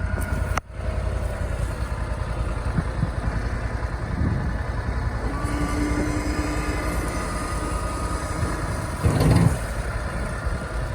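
Gator utility vehicle's engine running steadily at idle, with a brief dip about half a second in and a short louder burst of noise near the end.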